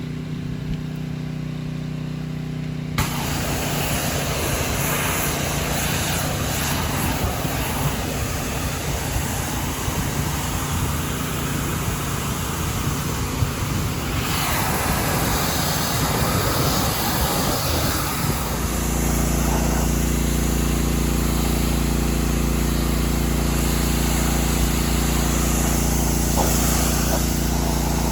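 Pressure washer running steadily, with the hiss of the water spray starting about three seconds in. The machine's drone changes pitch and grows slightly louder about two-thirds of the way through.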